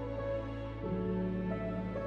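Soft background music of slow, held notes, changing chord about a second in.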